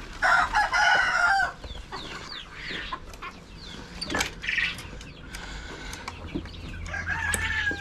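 Chickens clucking and squawking, with a loud call in the first second or so and shorter calls after it. Near the end a rooster starts to crow.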